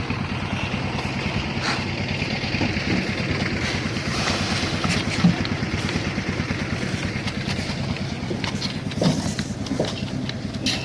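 Engine of a concrete mixer machine running steadily, with a few short knocks, the loudest about five seconds in.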